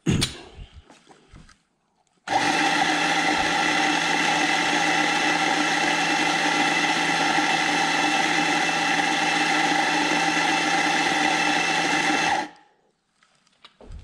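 Ceado E6P coffee grinder grinding espresso beans into a portafilter: a steady motor whirr that starts about two seconds in and cuts off about ten seconds later.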